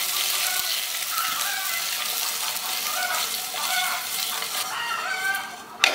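Steamed semolina balls being stirred in a pan of sizzling tempering (oil with mustard seeds, chilli flakes and sesame): a steady sizzle with stirring sounds, and one sharp knock near the end.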